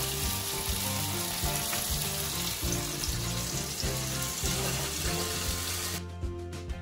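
Chopped onions sizzling as they fry in hot oil in a pan, turning light brown, over background music. The sizzle cuts off suddenly about six seconds in, leaving only the music.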